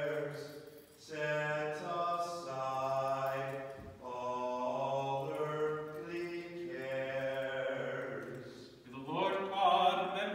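A man's voice chanting a slow Byzantine liturgical hymn unaccompanied, holding long notes that step in pitch, in phrases broken by short breaths. A louder, brighter phrase begins near the end.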